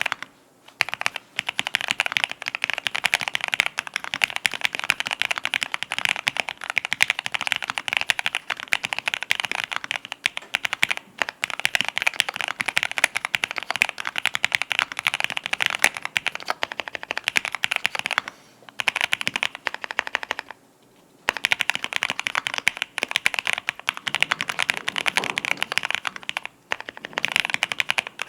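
Fast, continuous typing on a mechanical keyboard with lubed TTC Golden Red linear switches, an aluminium plate and PBT keycaps: a dense run of keystrokes. The typing breaks off briefly about 18 and 20 seconds in and again near the end.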